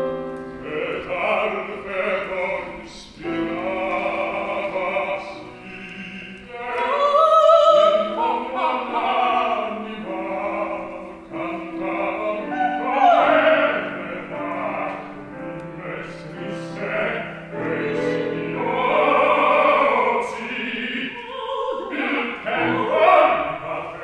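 Operatic soprano singing in Slovak with a wide vibrato, carried over long held low accompanying notes.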